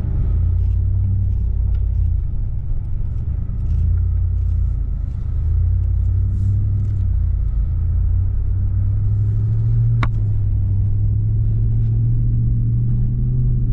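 Pickup truck driving, a steady low engine and road rumble, with a single sharp click about ten seconds in.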